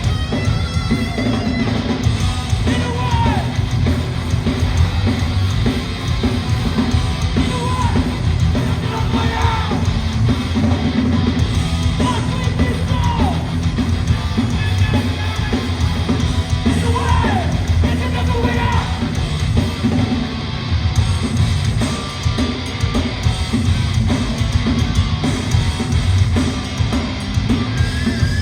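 Hardcore band playing live and loud: heavily distorted guitars over pounding drums, with yelled vocals.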